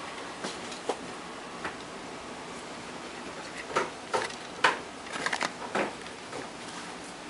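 Handling noise of a small inverter control circuit board: a few light taps, then a cluster of sharp clicks and knocks in the second half as the board is moved about and stood on the workbench.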